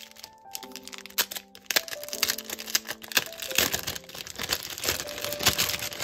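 Thin clear plastic bag crinkling and rustling as it is opened by hand, getting busier about two seconds in. Background music with held notes plays underneath.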